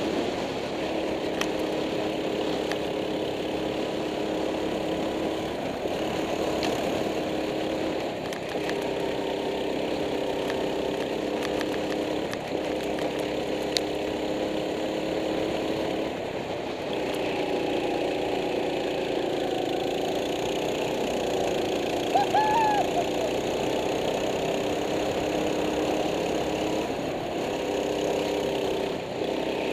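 Go-kart engine running hard, heard from on board the kart, its note dipping and climbing again every few seconds through the corners. A brief high squeal rises and falls about two-thirds of the way in.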